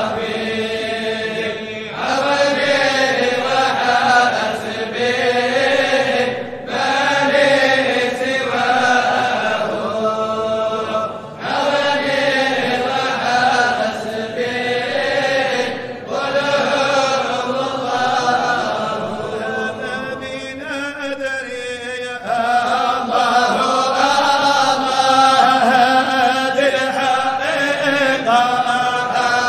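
Chanted singing of a Sufi qasida in Arabic, in long sung phrases with short pauses between them.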